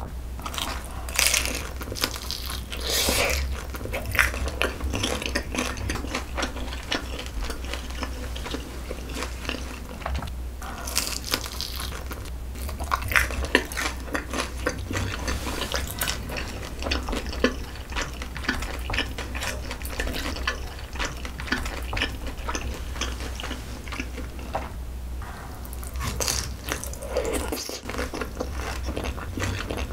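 Close-miked eating sounds: bites and chewing of crispy fried pork (kkwobaro), a dense run of short crunches and wet chewing, louder in a few clusters.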